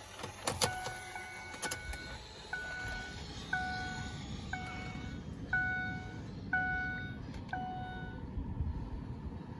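2007 Mercury Montego's dashboard warning chime dinging about once a second, about eight times, with the ignition switched on before the engine is started. A few sharp clicks come just before the chimes begin.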